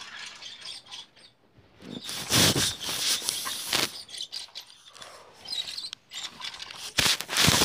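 Rustling and scuffing noise in two loud bursts, with scattered clicks between, from the camera being handled and plastic toy trucks being pushed about on carpet.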